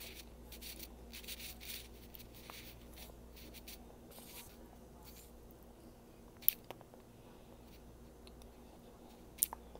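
Soft rustling and scraping of handling, in the first half, then two sharp clicks, one about six and a half seconds in and one near the end.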